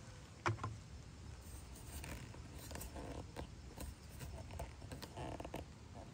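Slow footsteps crunching on gravel, two soft crunches a couple of seconds apart, with scattered light clicks and one sharper click about half a second in.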